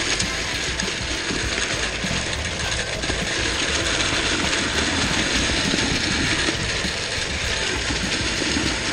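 Concrete pump running as wet concrete pours from the end of its hose into the cores of a hollow concrete-block wall: a loud, steady noise with no pauses.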